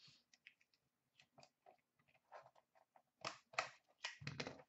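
Faint handling noises of a cardboard trading-card box being picked up and opened: scattered small clicks and crinkles, with louder cardboard rustles about three seconds in and near the end.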